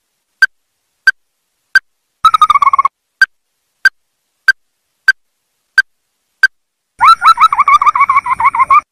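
Ruddy-breasted crake calling: single sharp notes repeated about three every two seconds, broken by a short rapid run of notes a little after two seconds in and a longer rapid trill near the end.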